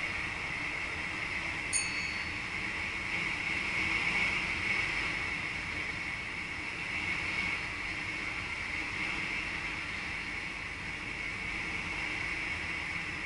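Steady running noise inside the cab of a VIRM double-deck electric train under way, with a single short bright chime about two seconds in.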